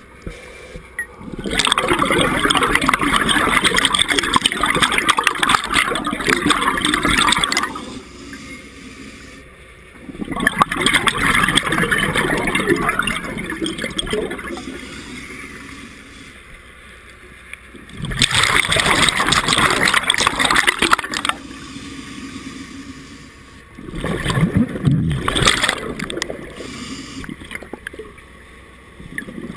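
A scuba diver's exhaled breath bubbling out of the regulator, heard underwater: four long surges of rushing, gurgling bubbles a few seconds each, with quieter stretches between breaths.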